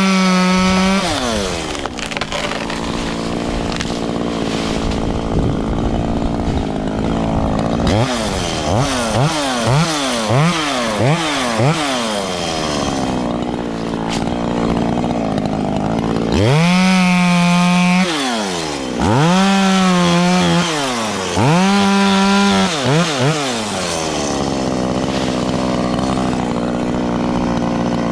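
Chainsaw engine idling, blipped up and down several times, then run at full throttle three times for a second or two each, dropping back to idle between runs.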